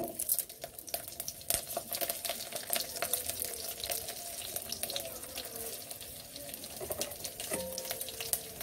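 Garlic cloves and mustard seeds sizzling in hot oil in a kadai, with a dense, irregular crackle and spitting throughout.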